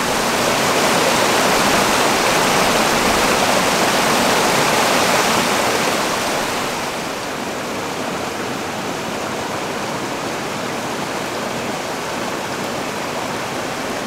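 A small mountain creek rushing and splashing over rocks in a steady stream, a little louder for the first six or so seconds and then easing slightly.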